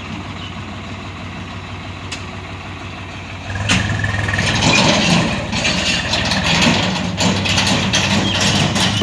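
Diesel engines of a backhoe loader and tractor running: a steady idle, then about three and a half seconds in the engine comes under load and gets louder, with scattered knocks and clanks.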